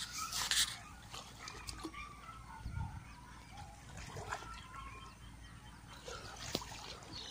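Water splashing as a man wades and works his hands in a muddy pond, loudest in the first second, followed by scattered short bird calls in the background.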